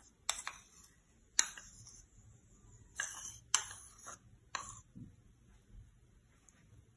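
A small cup clicking and knocking against a blender jug as thick condensed milk is emptied out of it: about seven short, sharp taps in the first five seconds.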